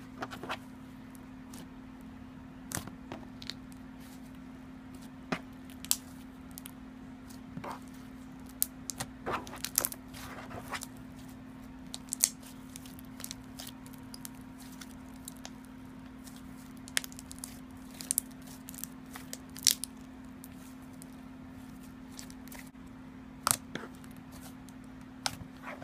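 Thick, buttery slime being kneaded and squished by hand, giving scattered sharp clicks and pops at irregular intervals. A steady low hum runs underneath.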